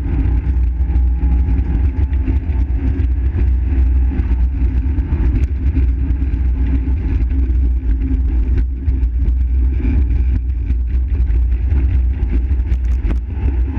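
Fiat Seicento rally car heard from inside the cabin, its engine running steadily under load with a heavy low rumble. Many short knocks and rattles come through as the tyres run over the joints and cracks of a concrete-slab road.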